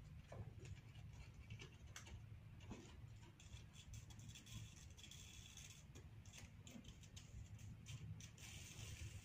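Faint handling noise, with scattered light clicks and rustles as gloved hands set a welding rod in its electrode holder against a battery joint, over a low steady hum.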